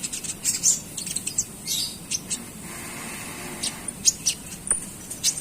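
Konin songbird chattering: many short, high chirps and twitters in quick, uneven runs, the bird's 'ngeriwik' song.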